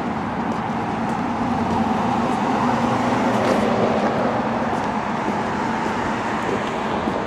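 Steady street traffic noise, an even rush of passing vehicles.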